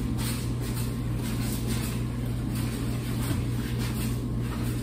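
Steady low hum and rumble of coin-laundry machines running.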